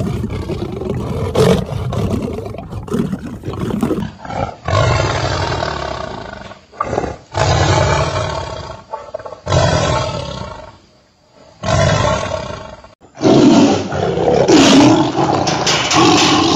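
Big cats growling and roaring. Rough growling runs for the first few seconds. After a cut come several long snarling roars from tigers, with short breaks between them, and the loudest comes near the end.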